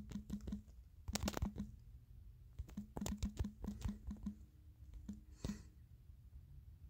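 Fingertips tapping keys on a smartphone's touchscreen keyboard, a quick irregular run of light taps that stops a little past four seconds, followed by a brief soft swish.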